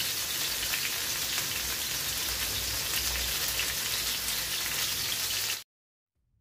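Salmon fillets frying in oil in a pan: a steady sizzle that cuts off suddenly about five and a half seconds in.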